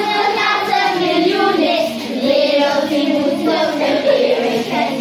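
A group of third-grade children, about eight years old, singing a song together in Dutch, holding and sliding between notes without a break.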